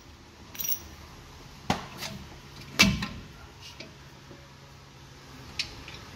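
A few separate knocks and clunks, the loudest just before three seconds in, as a new front shock absorber is worked up through the coil spring and its top stud settles in the upper mount.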